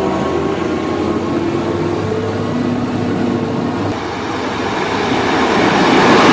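Train sounds: a railcar running with several steady whining tones over a low rumble. About four seconds in, a rushing noise builds steadily and grows loud near the end as a train draws close.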